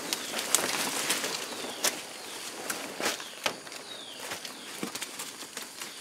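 Footsteps crunching through dry leaf litter and snapping twigs in forest undergrowth, in irregular crackles and sharp snaps. A bird repeats a short falling whistle about every three seconds.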